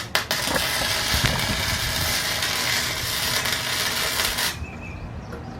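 Eastwood 135 MIG welder's arc crackling and sizzling steadily for about four and a half seconds, then cutting off abruptly as the bead stops.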